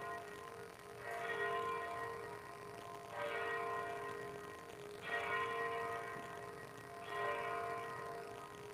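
Church bell tolling, one stroke about every two seconds, four strokes in all. Each stroke rings on the same pitch and fades before the next.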